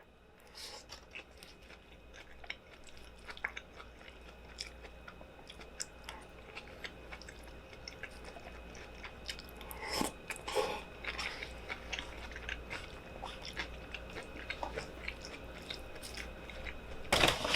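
A person chewing food close to the microphone, eating a burrito bowl: many small wet mouth clicks and light crunches, with a couple of louder crunches about ten seconds in.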